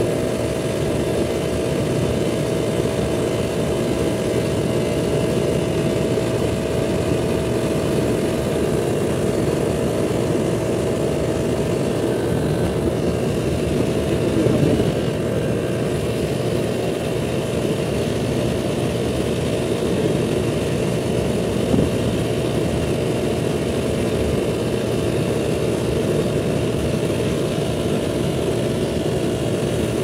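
Air-conditioning condensing unit running: the compressor and fan give a steady mechanical hum with a steady whine, and the compressor is drawing about 12 amps.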